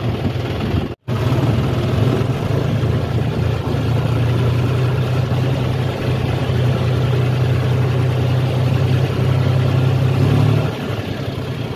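John Deere tractor's diesel engine running steadily as the tractor drives along, heard from the driver's seat. The sound breaks off for an instant about a second in, and the deep engine hum eases shortly before the end.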